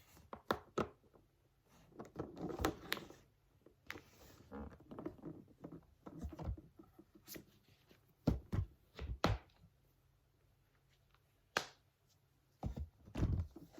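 Close-up handling noises: irregular knocks, taps and clicks of objects being picked up and set down, with stretches of rubbing or rustling in between.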